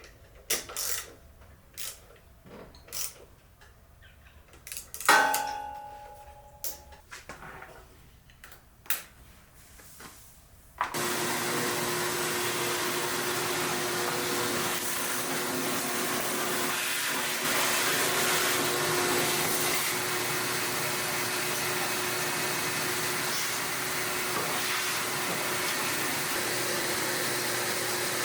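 Scattered clicks and knocks of tools and parts being handled, one with a brief metallic ring, then a steady motor-driven machine switched on, running loud and even for about seventeen seconds before cutting off abruptly.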